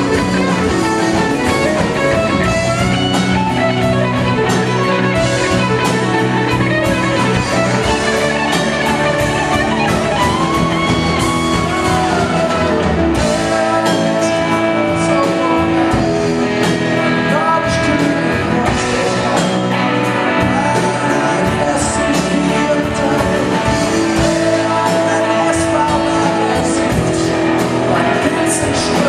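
Rock band playing live: electric and acoustic guitars, bass, drums and keyboards, with a man singing at times.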